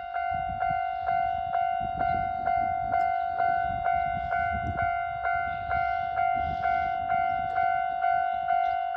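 Japanese railway level-crossing warning bell ringing: a repeating electronic clang about twice a second over a steady ringing tone, with a low rumble underneath.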